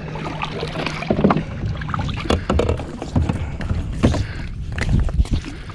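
Kayak paddle strokes dipping and splashing in the water, with scattered sharp knocks against the kayak's hull. Later the rope of a crab trap is pulled up out of the water beside the boat.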